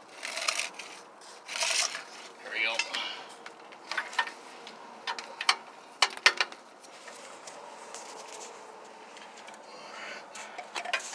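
Scraping and rubbing on a concrete floor in several short bursts, then a scatter of sharp clicks and light knocks.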